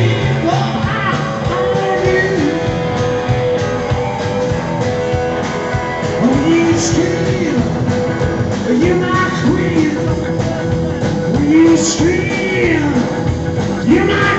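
Live rockabilly band playing loudly: electric guitar, upright bass and drums with a steady beat.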